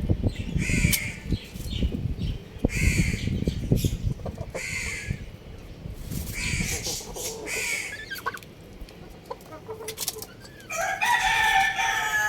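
Short bird calls repeated every second or two, then a rooster crowing in one long call near the end.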